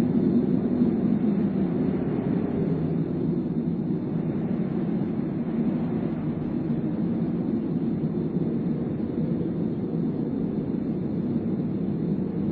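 Steady low rumbling drone, even and unbroken, with no clear tones or rhythm.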